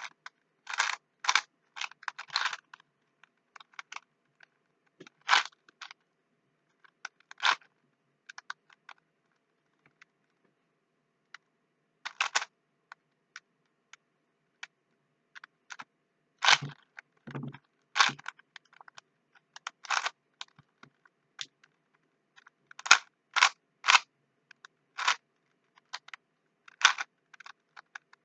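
Plastic Rubik's cube being twisted by hand: irregular sharp clicks and short clattering runs as the layers turn, with pauses between moves. A couple of duller knocks come about two-thirds of the way through.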